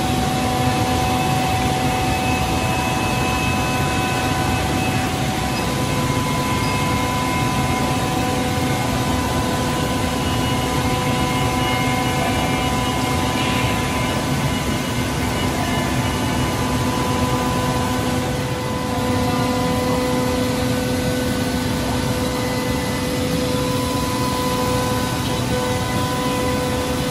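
PTP-3013 CNC machining centre running as it machines a wooden panel: a steady mechanical noise with several steady tones, which shift slightly about two-thirds of the way through.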